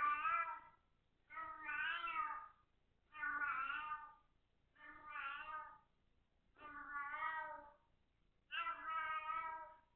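Domestic cat meowing over and over: six long, wavering calls, each about a second long and roughly a second and a half apart. The sound comes through a home security camera's microphone, which gives it a narrow, thin quality.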